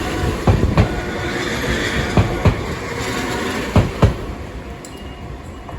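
Enoshima Electric Railway (Enoden) train passing, its steel wheels clicking over rail joints in pairs about every second and a half over a steady rumble. The sound fades after about four seconds.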